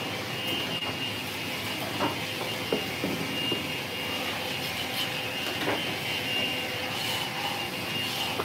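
Steady machine hum with a thin, steady high whine, and a few faint ticks and taps over it.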